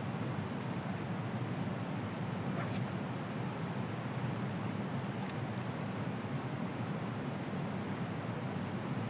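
Steady rushing of a fast-flowing river, an even, unbroken noise.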